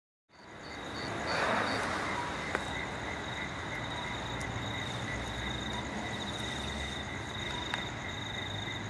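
Crickets chirring steadily at night in several high, evenly pulsing tones, over an even hiss and a low rumble. A brief rustle comes about a second in.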